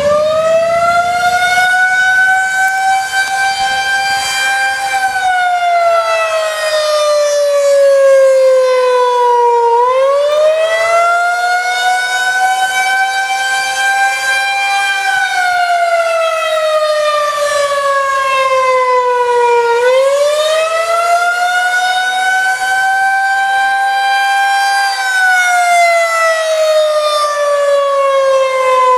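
Federal Signal 2001-130 electromechanical outdoor warning siren sounding the attack signal: a loud, steady wail that rises in pitch, holds briefly, then slides down, repeating about every ten seconds. It is just finishing its spin-up as it begins, goes through three rise-and-fall cycles, and starts climbing again near the end.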